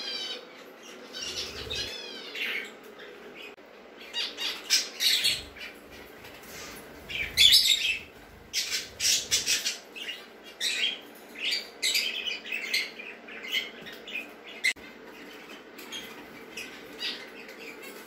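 Pet budgerigars chirping and squawking in a run of short, sharp, rapid calls with quick pitch sweeps. The loudest burst comes a little before halfway.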